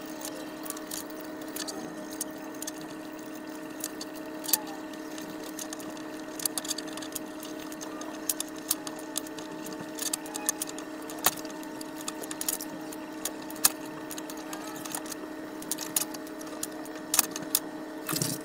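Small metal and plastic Meccano parts clicking and clinking at irregular intervals as a model is taken apart by hand and pieces are set down on the table, over a steady hum.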